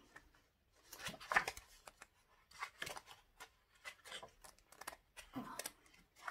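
Pages of a découpage paper pad turned by hand one after another: four faint paper rustles about a second and a half apart, with small paper clicks between.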